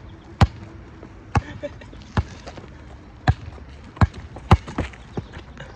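Basketball being dribbled on an asphalt court: a string of sharp bounces at an uneven pace, some about half a second apart, others a second or more.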